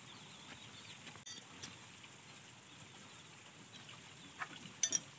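A few scattered metal clinks of open-end wrenches on a hand tractor's engine mounting bolts, the loudest near the end, over a quiet background. The bolts are being loosened so the diesel engine can be slid back to slacken an overtight V-belt.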